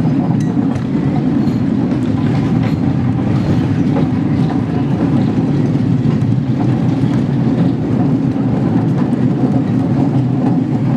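A quarter-scale miniature railroad train rolling along its track: a steady rumble of wheels on rail, with a few faint clicks.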